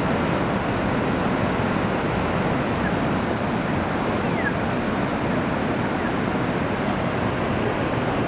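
Steady rush of water pouring over Niagara Falls, heard from a distance as an even, unbroken hiss.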